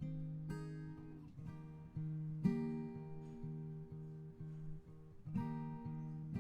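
Background music: acoustic guitar picking in an even rhythm, each plucked note ringing and fading.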